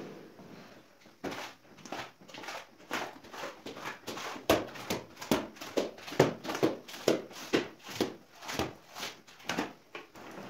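Rubber floor squeegee pushed in quick, repeated strokes over wet ceramic tiles, each stroke a short wet swish, about two a second.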